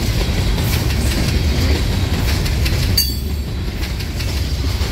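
Herzog rock train's open hopper cars rolling past on the rails: a steady low rolling noise of steel wheels on track, with scattered clicks. The higher-pitched part of the noise dies down briefly about three seconds in.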